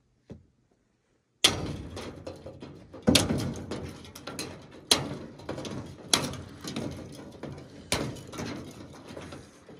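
A hatchet breaking thin ice, about a centimetre thick, on the rainwater in a galvanized stock tank: five sharp strikes, starting about a second and a half in and coming roughly every one and a half to two seconds, each followed by a clatter of broken ice.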